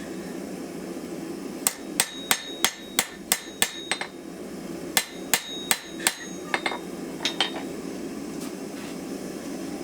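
Hand hammer striking a hot steel knife blank on an anvil to straighten it, the blank grey-hot rather than glowing. There are two runs of quick ringing blows, about three a second, eight and then four, followed by a few lighter taps, over a steady low rushing noise.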